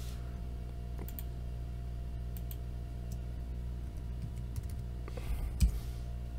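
Computer keyboard keystrokes and mouse clicks while working in CAD software: scattered single taps, then a short run of keystrokes near the end with the last one the loudest, over a steady low hum.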